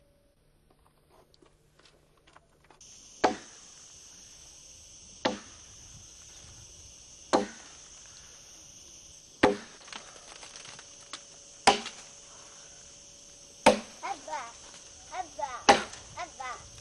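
Axe blows chopping into a fallen log, one sharp stroke about every two seconds, over a steady high buzz of insects.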